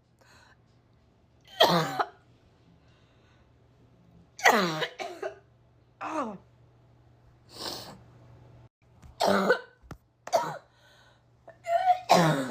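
A person coughing repeatedly: about seven separate coughs a second or two apart, several of them voiced and falling in pitch.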